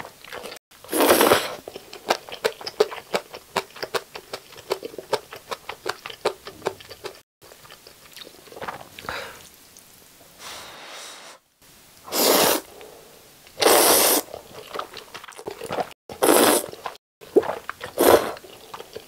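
Close-miked eating of jjajang (black-bean sauce) instant noodles: a series of loud, long slurps as strands are sucked in, about five in all. Between them come rapid wet chewing and lip-smacking clicks, densest in the first third.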